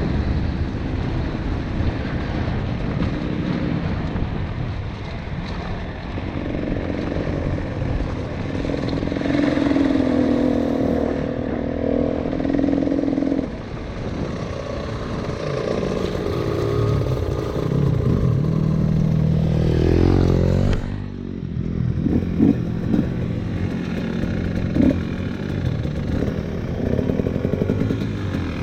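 Single-cylinder two-stroke engine of a KTM 300 TPI dirt bike running under way off-road, its revs rising and falling with the throttle. About twenty seconds in the revs climb, then the throttle shuts and the engine drops to a lower, uneven running with scattered knocks and rattles.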